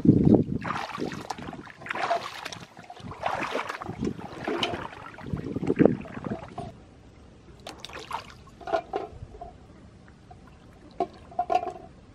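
Water sloshing and swishing in irregular surges as a person wades waist-deep through a muddy pond. It goes quieter after about six and a half seconds, with a few short sharp sounds near the end.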